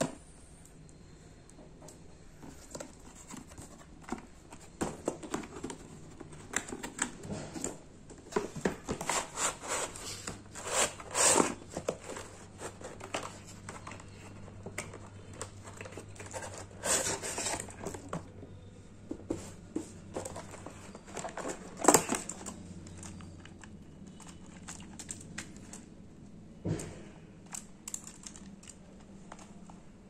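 Cardboard box and plastic packaging being opened and handled: irregular crinkling, rustling and tearing with scattered knocks, loudest about a third of the way in and again a little past two thirds.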